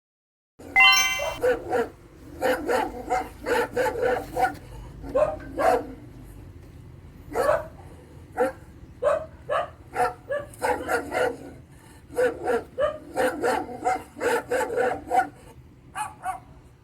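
Dog barking over and over in quick runs of short barks, with brief pauses between the runs.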